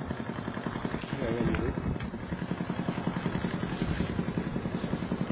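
A vehicle engine running steadily, heard from inside the vehicle's cabin.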